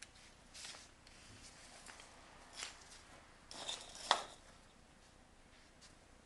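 Netting twine being drawn through and pulled tight with a netting needle while it is knotted onto a float rope: faint, scattered rustles and scrapes, with a sharper swish about four seconds in.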